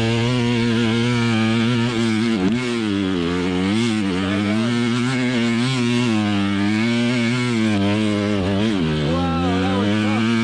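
2020 KTM 300xc TPI two-stroke dirt bike engine being ridden, its revs rising and falling constantly as the throttle is worked, with short drops in pitch a few times.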